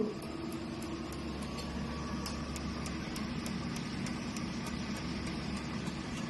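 Picosecond laser machine running with a steady hum from its cooling system, and light ticks about three times a second as the laser fires.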